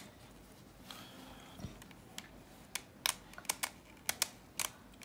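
Plastic Bermuda Uranus puzzle cube being turned by hand: light clicks as its faces rotate and snap into place, a few at first, then a quick run of them in the second half.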